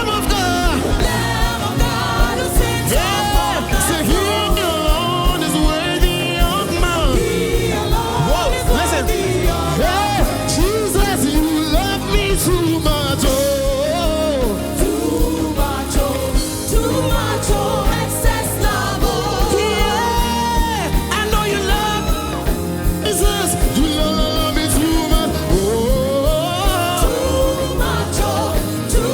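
Live gospel band music with singing: sliding, wordless vocal lines over sustained chords and a steady, regular drum beat.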